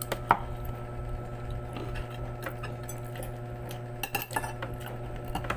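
Metal spoon and fork clinking and scraping against a plate of food while eating: a few scattered clicks, with a cluster about four seconds in, over a steady low hum.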